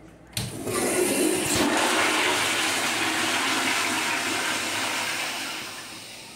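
Commercial toilet flushed by its chrome flushometer valve: a sharp click as the push-button is pressed, then a loud rush of pressurised water for about five seconds, tapering off near the end as the valve shuts.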